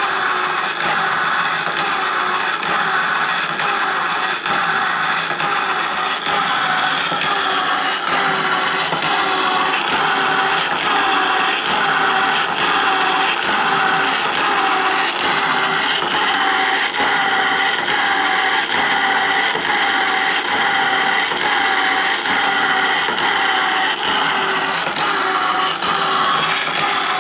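Homemade power hacksaw driven by a washing-machine motor, running steadily: the motor whines continuously while the blade rasps back and forth through the workpiece about once a second.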